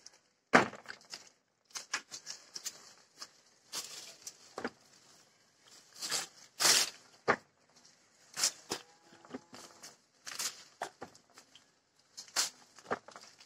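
Orange-tree leaves and branches rustling and shaking in irregular bursts, with sharp snaps and clicks, as oranges are picked by hand.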